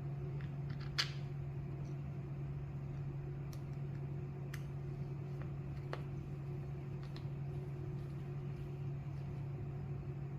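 Steady low hum, like a fan, with a few light clicks and taps scattered through, from small screws and a screwdriver being handled while a clipper body is put back together.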